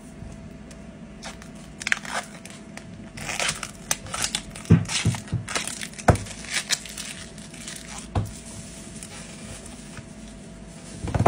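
Crunching and crackling of the shattered glass on an iPad Pro screen as the tablet is tilted and handled, with several sharp knocks as it is set down on the work mat, the loudest at the very end.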